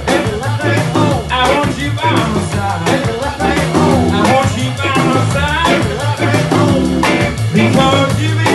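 Live band playing an upbeat soul-jazz groove on electric guitar, organ and drum kit, with a melody line that bends in pitch over a steady bass pulse.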